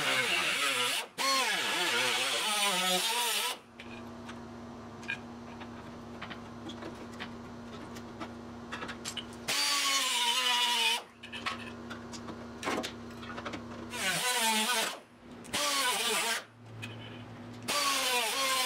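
Handheld cut-off wheel cutting rusty sheet steel in several bursts: a high whine whose pitch sags and recovers as the disc bites into the panel. A quieter steady hum runs between cuts.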